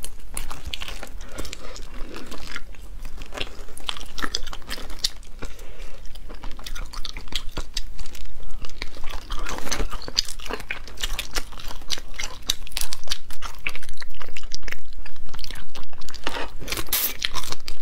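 Close-miked cracking and peeling of boiled mantis shrimp shells by hand, with crunching, biting and chewing of the meat. The crackling grows louder and denser about two-thirds of the way through.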